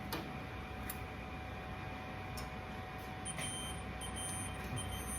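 Steady machine hum with a few faint clicks as small plastic parts are handled and pushed into place.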